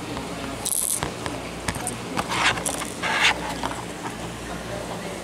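Handling noise as a plastic squid jig and its packaging are turned in the hand: a few short scrapes and clicks, the loudest about two and a half and three seconds in, over a steady low hum.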